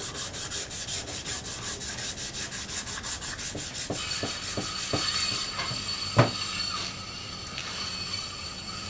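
Abrasive sheet scrubbed quickly back and forth over the metal gasket face of an outboard throttle body, about five strokes a second, scuffing it clean in a crosshatch pattern. The scrubbing stops about five seconds in; a few light clicks and one sharp knock follow as the part is handled.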